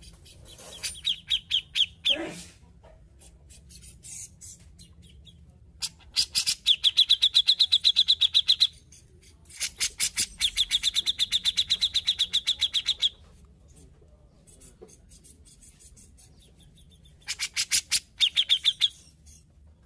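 Grey-cheeked bulbul (cucak jenggot) singing in four bursts of rapid, even chattering notes, about seven a second, the longest lasting some three seconds. A short falling slur follows the first burst.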